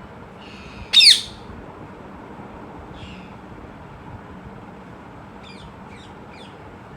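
Parrot calls: one loud, downward-sweeping squawk about a second in, a faint call a couple of seconds later, and three short chirps near the end.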